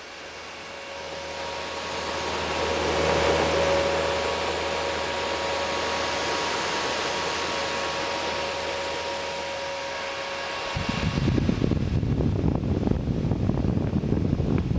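Home DK-5298 rechargeable portable fan running with a steady whir and a faint hum tone, swelling over the first few seconds. About eleven seconds in, a rougher, louder low rumble takes over.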